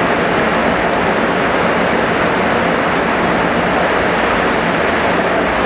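Heavy rain falling steadily, a dense, even hiss without pauses.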